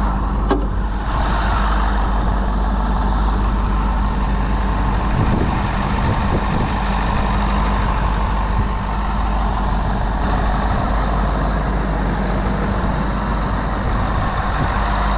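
Ford 6.7 L Power Stroke V8 turbo-diesel idling steadily under the open hood, with a single sharp click about half a second in.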